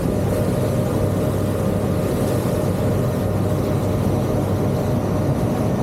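Tour boat's engine running steadily under way: an even, low drone that holds the same level throughout.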